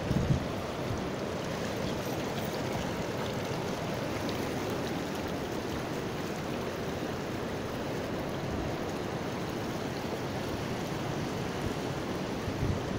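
Swollen river after heavy rain, its fast current making a steady rush of water. A few brief gusts of wind rumble on the microphone at the start and again near the end.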